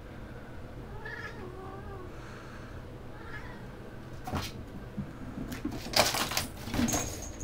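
Kittens mewing, a few short faint calls in the first half, then knocks and a loud clattering thump about six seconds in as they scuffle.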